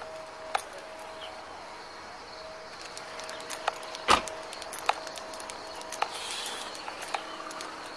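Sharp clicks repeating about once a second over a faint steady tone, with one louder knock about four seconds in.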